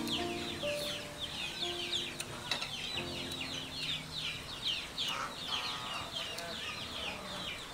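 Many chicks peeping steadily, a dense run of short, high cheeps that slide downward. Soft background music with held notes fades out about three seconds in.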